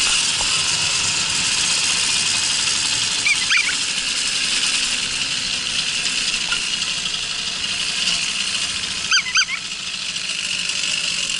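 Babetta moped's small two-stroke engine running steadily while riding on a paved road, heard as a continuous hiss. Short high squeaks stand out about three and a half seconds in and twice about nine seconds in.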